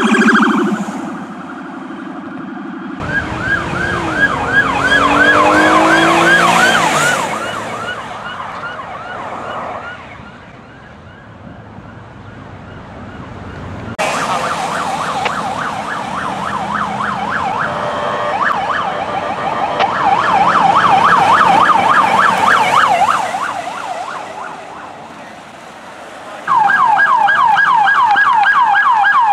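Police car electronic sirens in fast yelp, about four sweeps a second, across several short clips cut one after another. The siren swells and fades as each car passes. A lower second siren tone sweeps up under the yelp about four to seven seconds in, and near the end a loud yelp starts suddenly.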